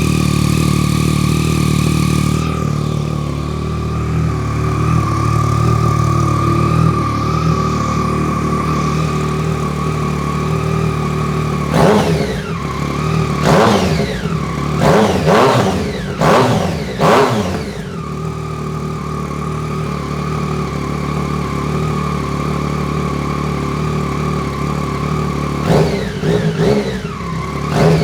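Yamaha FZ-09's inline three-cylinder engine idling through a newly fitted Black Widow aftermarket full exhaust. About halfway through it is revved in a run of about five quick throttle blips before settling back to idle, and it is blipped again near the end.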